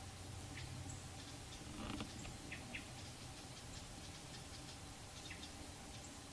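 Quiet outdoor ambience with scattered faint, short high chirps or ticks over a low steady hum.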